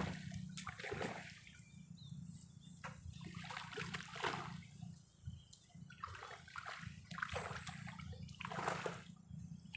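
Water splashing and sloshing in irregular bursts, about seven times, over a low steady rumble.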